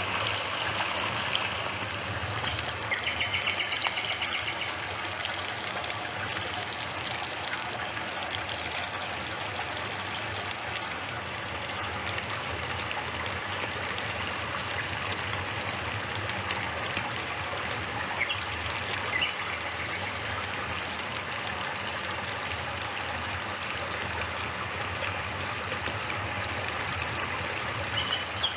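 Steady running water, like a small stream trickling over stones, with a few brief high chirps over it.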